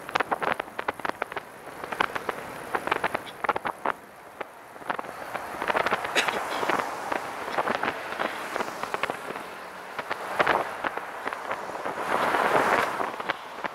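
Riding noise of a recumbent trike rolling along a highway: road and wind noise full of rapid, irregular crackling clicks. The noise swells briefly as traffic passes near the end.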